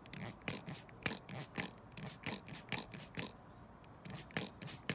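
Hand trigger spray bottle squirting in quick pumps, about four a second, with a short pause about three seconds in before a few more.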